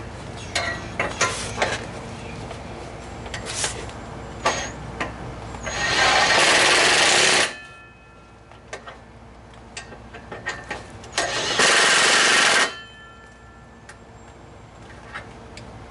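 Hand work on an exhaust system under a car: scattered metal clinks and knocks from tools and pipe parts, with two loud hissing bursts of about a second and a half each, near the middle and about three quarters through.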